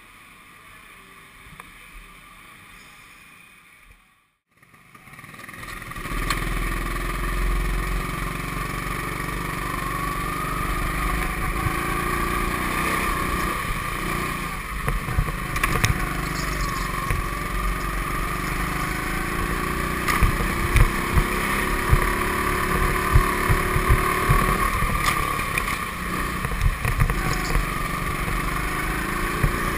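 Indoor go-kart engine running as the kart drives around the track, its pitch wavering up and down with the throttle, with low rumbling and knocks from the kart and wind on the mount. Quieter for the first few seconds, then a brief dropout about four seconds in before the engine comes in loud.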